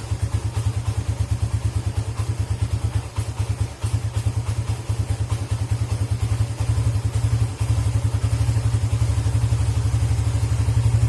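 Suzuki GSX motorcycle's single-cylinder engine idling after a rev, with an even pulsing beat that sags and stumbles a few times, most deeply about four seconds in. This stumbling ('brebet') when the throttle is closed is caused by a dirty idle speed control (ISC) valve.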